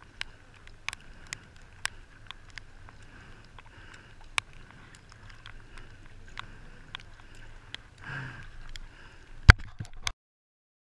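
Sea kayak being paddled, heard from a camera on its deck: irregular sharp ticks and splashes of water and paddle, with a louder knock near the end. The sound cuts off suddenly about ten seconds in.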